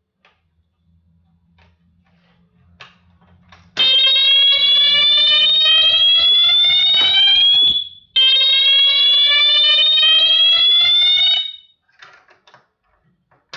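Wheelock MT-24-MCW multitone fire alarm horn sounding a tone made of two long rising sweeps, each about four seconds, with a brief break between them. This is the tone set by its switches 1 and 3. A few faint clicks come before it starts.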